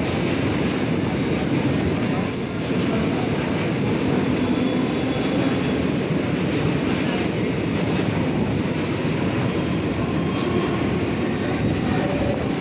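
A goods train's tank wagons running past close by: a steady, loud rumble and clatter of wheels on rail, with a brief high hiss about two seconds in.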